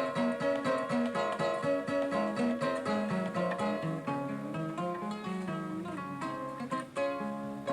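Kora, the West African harp-lute, played solo in a fast run of plucked notes, with a bass line moving under a repeating higher pattern.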